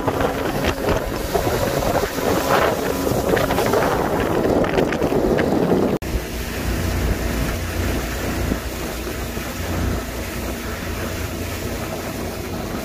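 Motorboat running at speed, its wake and spray rushing, with wind buffeting the microphone. About six seconds in the sound cuts to a lower, steadier engine rumble with less water noise.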